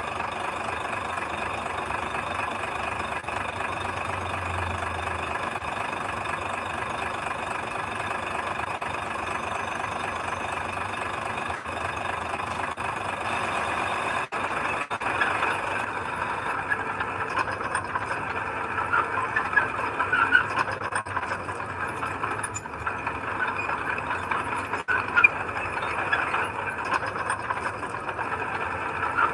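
Diesel engine of heavy earthmoving machinery running steadily. From about halfway through, short clanks and squeaks come in over it.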